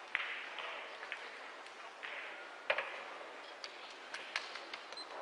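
Pool cue striking the cue ball with a sharp click, followed by lighter clicks of balls colliding. A louder knock comes a little past halfway.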